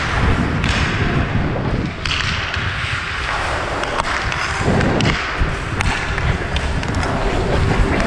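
Ice hockey skates scraping and carving on the ice while a stick knocks the puck a few times in sharp taps, under a heavy low rumble of wind and movement noise on the worn action camera.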